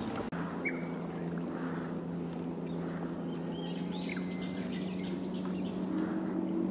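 A boat motor hums steadily at a low pitch. Small birds call over it: one chirp about a second in, and a quick run of repeated high notes in the middle.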